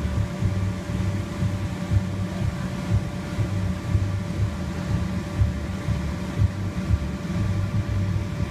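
Electric inflatable blowers running, keeping the bounce houses inflated: a steady drone with a fixed hum over an uneven low rumble.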